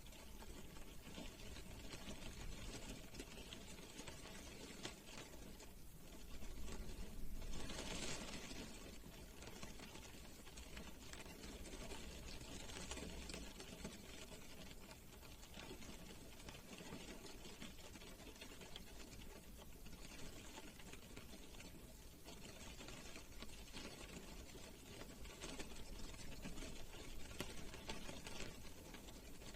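Rain drops pattering on a car's body, heard from inside the car: a dense, steady ticking of many drops, swelling louder for a few seconds about six seconds in.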